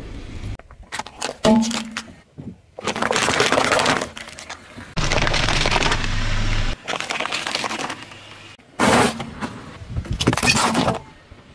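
Objects cracking and crunching as they are crushed under a car tyre: a run of separate breaking sounds, each up to a couple of seconds long, with short pauses between.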